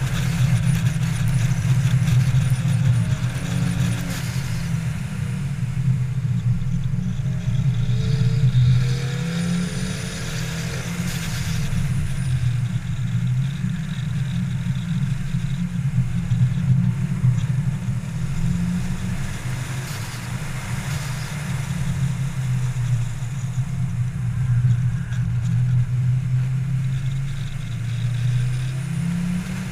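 Ford Focus RS engine running hard around a circuit: a steady low drone with wind rushing past, its pitch falling and rising as the car lifts, shifts and accelerates.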